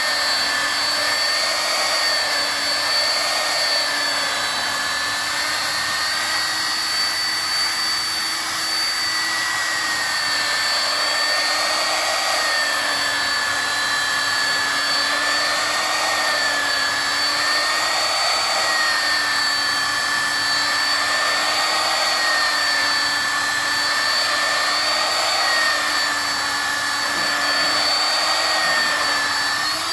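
Black & Decker angle grinder with a buffing pad running against an acrylic aquarium panel, polishing it: a steady high motor whine that wavers slightly in pitch every couple of seconds.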